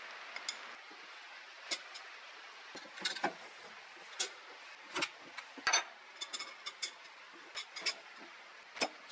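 Irregular light clicks and clinks of aluminium arm plates, bolts and axles being handled and fitted together by hand, over a faint steady hiss.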